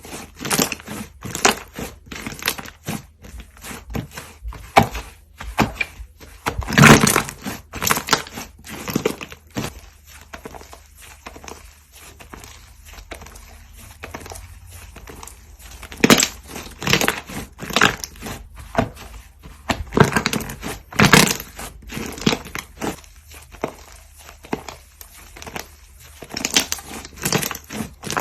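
Slime being squeezed and squished by hand, making irregular wet crackles and pops that come in bunches, with a quieter stretch in the middle.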